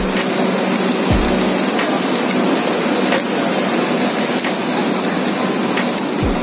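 Steady rushing roar of an underground MRT station, with a thin high whine held throughout and a few faint clicks.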